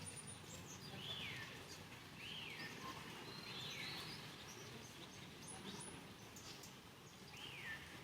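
Faint high chirping calls, about five short whistles that each rise and then fall, spaced irregularly over steady outdoor background noise.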